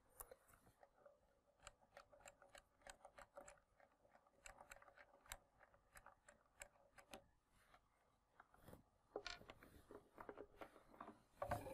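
Faint small clicks and light rustling of a probe cable being handled as its connector is fitted to the transmitter, with a short lull and then a busier run of rustling near the end.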